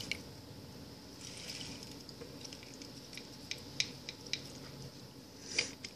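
Lime being pressed in a hand-held citrus squeezer over a vase of liquid, with soft squishing, juice dripping in and a few sharp ticks, the loudest near the end.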